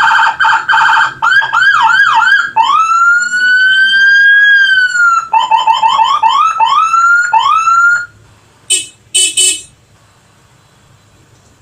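Whelen electronic siren cycling through its tones: a rapid pulsing warble, quick yelp sweeps, one long rising-and-falling wail, then fast yelps again, cutting off about eight seconds in. Two short blasts follow just after.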